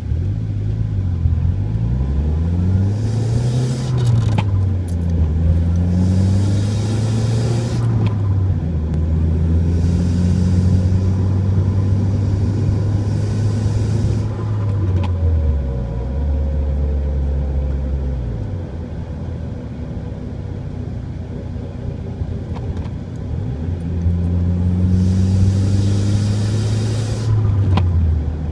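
Dodge SRT-4 Neon on the move with a low humming, whining drone that rises and falls in pitch several times. The owner suspects a bad wheel bearing, since the noise appears whenever the steering wheel is turned off centre.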